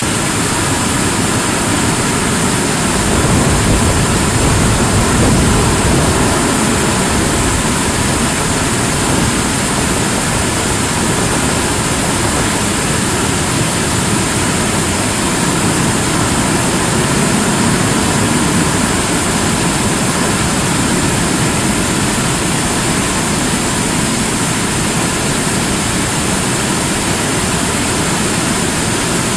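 75-ton-class kerosene and liquid-oxygen rocket engine firing steadily in a long-duration hot-fire test, a continuous even rumble heard from afar.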